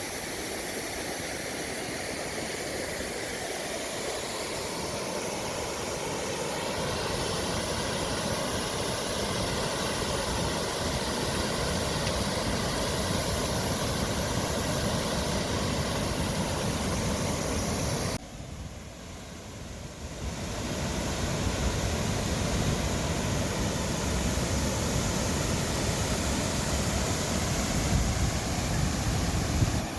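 Steady vehicle engine and road noise from an SUV being driven, with a deep rumble underneath. The sound drops away briefly about two-thirds of the way through, then returns.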